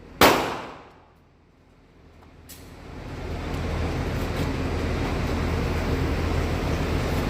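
A single 12 gauge shotgun shot, a sharp crack that rings away over about half a second. From about three seconds in, a steady low rumble of a vehicle builds up and holds.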